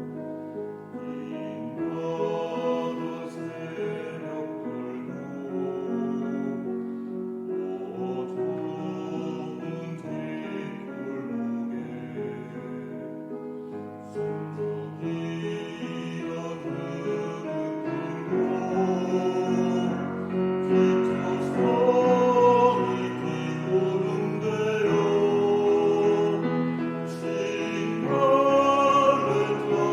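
Choir singing with piano accompaniment, growing louder toward the end.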